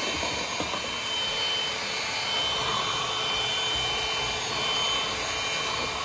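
Tamong cordless stick vacuum running steadily, a rush of air with a steady high whine from its motor, as it sucks up wood chips and bits of styrofoam.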